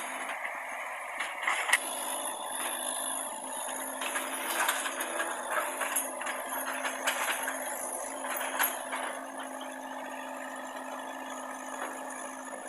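Hitachi mini excavator running steadily while it works building rubble, with scattered knocks and clatter of debris against the bucket.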